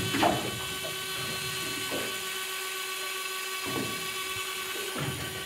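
Daiwa Tanacom 500 electric reel whirring steadily as its spool spins and pays out line under a sinking lead, a high, even whine. A few soft knocks sound through it.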